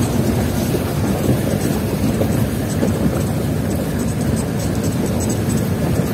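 Old jeep's engine and body heard from inside the cabin, running steadily while driving over a rough, rocky track: a loud, unbroken low rumble.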